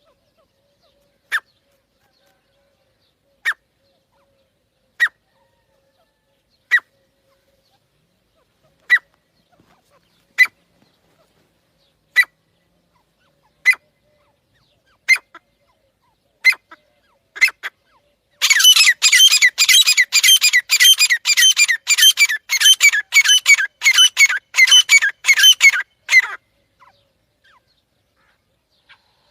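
Teetar (francolin) calling: about a dozen sharp single calls, one every one and a half to two seconds, then a fast run of calls for about eight seconds that stops abruptly.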